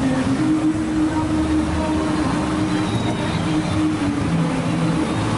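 Small engine-driven generators running steadily, powering the lights of the procession floats, with a held, slightly wavering engine tone.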